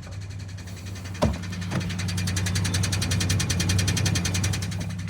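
2001 Chevrolet Silverado idling with its 4L60E automatic transmission put in reverse: a clunk about a second in, then a rapid, even ticking rattle, roughly a dozen beats a second, that builds and then eases near the end. The noise comes only in reverse, not in drive or the other gears, and its cause is unknown.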